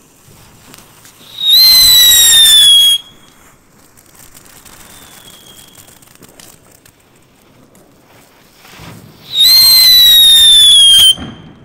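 GBV-Weco Coronel Dakar car firework, a ground novelty driven by a spark jet, giving two loud whistles about a second and a half long, the first about a second in and the second near the end. Each whistle holds a high, slightly falling pitch. Between them is a quieter crackling hiss from the spark fountain, with one faint short whistle midway.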